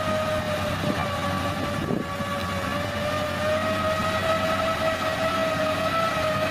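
Heavy construction machine running, with a loud steady whine that drifts slightly up and down in pitch over a low engine rumble.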